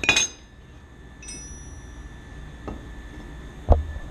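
Metal tools and parts clinking while a UTV hub is taken apart: a sharp clink at the start, then a piece of metal ringing briefly about a second in, a light click, and a dull thump near the end.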